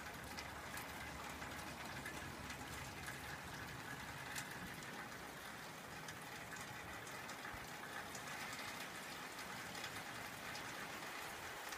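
Faint, steady rain falling, with occasional single drops ticking.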